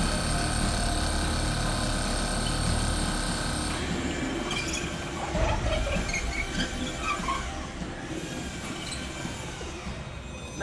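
Electric drill with a masonry bit boring through a concrete slab, running steadily and stopping about four seconds in; fainter scattered sounds follow.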